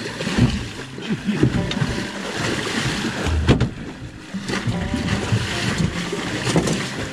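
Water splashing and sloshing against the side of a small boat as a hooked halibut thrashes at the surface while it is gaffed, with a sharp knock about three and a half seconds in.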